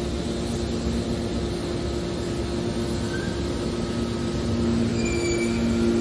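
Hydraulic scrap metal baler running: a steady mechanical drone with a steady two-note hum from its hydraulic pump, the hum growing a little louder about five seconds in.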